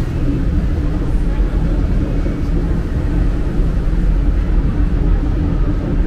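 Hong Kong Peak Tram funicular car running on its track: a steady low rumble with a droning hum.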